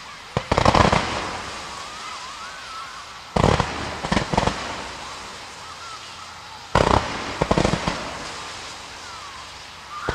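Aerial fireworks bursting in volleys: three groups of bangs about three seconds apart, each a loud report followed by a quick cluster of smaller pops.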